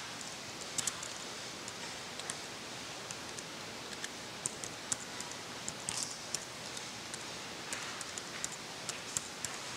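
Irregular light clicks and taps of a laptop keyboard being typed on, over a steady hiss of room noise.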